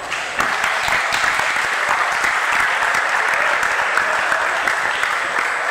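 Audience clapping, breaking out abruptly just after the start and holding steady.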